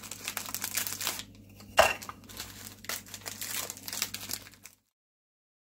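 Plastic cookie packaging crinkling and crackling as it is handled and opened, with one sharper crackle about two seconds in. The sound cuts off suddenly near the end.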